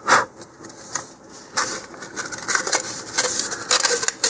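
Handling noise from a cardboard rocket coupler and body tube: a loud knock just after the start, then scattered light knocks and rubbing scrapes as the coupler is picked up and pushed into the tube.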